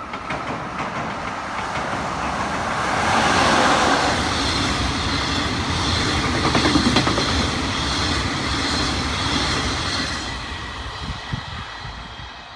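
Freight train hauled by a JR Freight EF210 electric locomotive passing at speed, the wagons' wheels running over the rails. The noise builds over the first few seconds as the locomotive goes by, holds while the flatcars pass, and fades near the end as the last wagons go.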